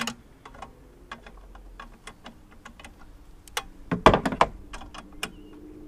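Light irregular clicking of a socket ratchet as bolts are worked on a small two-stroke mower engine, with a louder clatter of metal parts about four seconds in.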